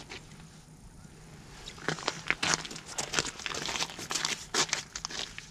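Crisp crunching and crackling of snow and ice close to the microphone, starting about two seconds in as a rapid, irregular run of crunches.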